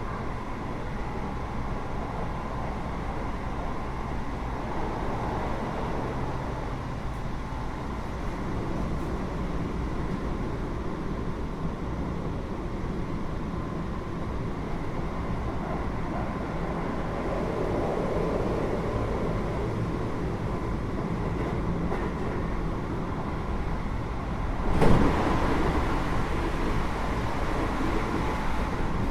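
Keio 8000 series electric train running, heard from inside the car above its Hitachi GTO-VVVF main controller: a steady rumble of wheels and motors with a faint steady tone. About 25 s in comes a sudden loud rush of noise, after which the running stays louder.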